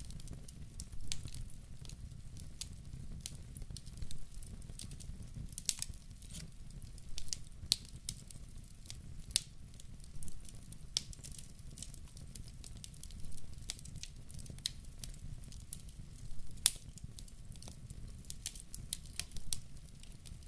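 Wood fire in a fireplace burning steadily, with a low rumble of the flames and irregular sharp crackles and pops from the burning wood.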